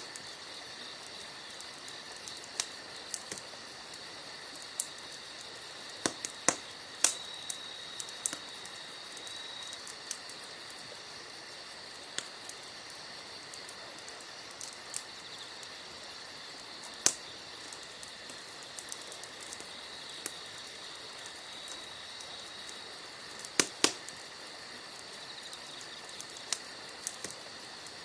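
Firewood burning in a campfire, crackling with irregular sharp pops, a few much louder than the rest. Behind it a steady high insect trill.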